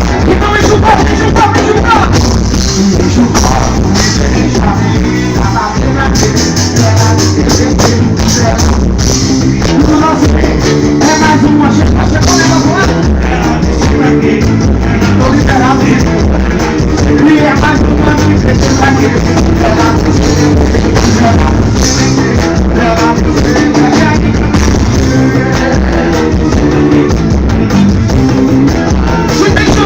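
Loud music from a Brazilian carnival street band (bloco), with percussion keeping a steady beat and a voice singing over it.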